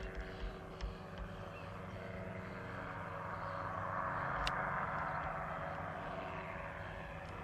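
Powered parachute's engine and propeller running in flight, getting louder to a peak about halfway through and then easing off slightly.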